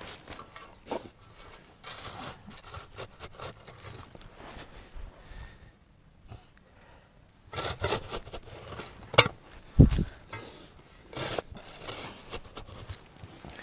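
Shovel scraping and chopping into sandy soil as a burrow is dug out: irregular scrapes and knocks, busier in the second half, with a heavy thud about ten seconds in.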